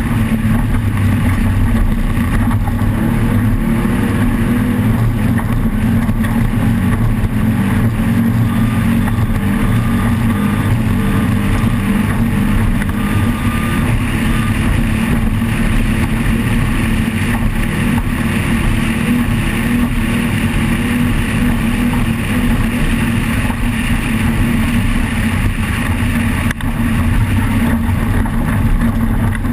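Off-road race vehicle's engine running loud and steady, holding a fairly constant pitch with only small wavers.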